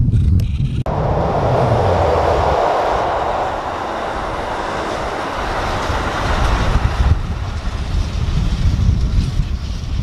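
Kintetsu limited express electric train running past close by: a steady rush of wheels on the rails with a low rumble. The sound breaks off for a moment just under a second in.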